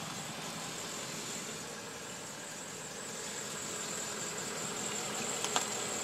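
2012 Mazda 6 running as the car rolls slowly, heard low beside the car: a steady exhaust noise that sounds like an old car, which the owner puts down to a loose seal in the muffler.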